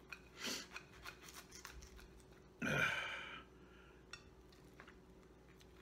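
A person eating from a plate: light fork clicks and scrapes, with two short breathy noises, the second and louder one just before halfway.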